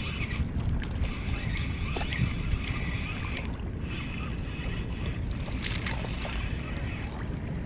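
Wind buffeting the microphone, with the whir of a spinning reel being cranked in stretches that stop and start. A brief rustle comes near the end.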